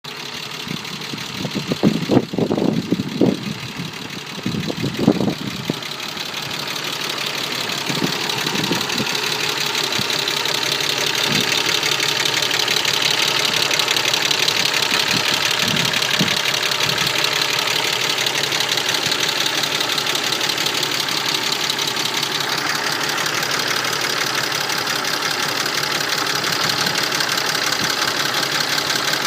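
Mercedes-Benz M104 straight-six engine running hot with a fast, steady clatter of its hydraulic lifters tapping, the sign of lifters that lose oil pressure when the engine is hot; the uploader cured it with an oil change. Several louder, irregular knocks come in the first five seconds, and the clatter grows louder over about the first ten seconds, then holds steady.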